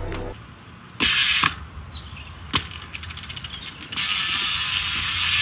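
Bicycle rear hub freewheel ratcheting as the wheel turns. A short rasp and a sharp click give way to a run of even ticks at about ten a second, and about four seconds in these merge into a fast, continuous buzz as the wheel spins freely.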